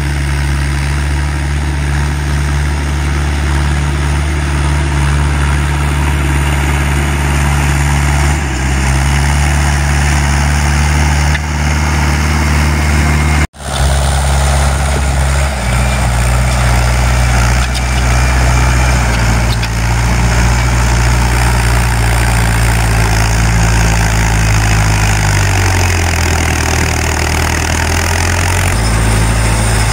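International 844 XL tractor's diesel engine working steadily under load while pulling a disc harrow through stubble. The low engine note shifts in pitch a few times, and the sound cuts out briefly about halfway before carrying on.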